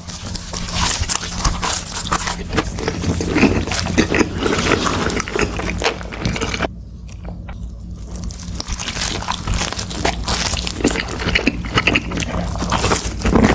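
Close-miked eating: crunchy bites and wet chewing, dense crackling clicks, with a brief quieter lull about seven seconds in.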